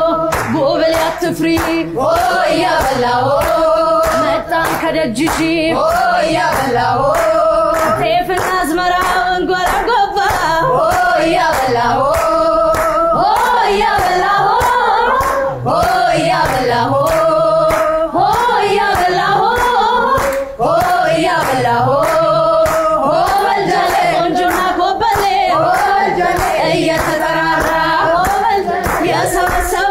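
A woman singing an Ethiopian song, with other voices joining in, over steady hand-clapping.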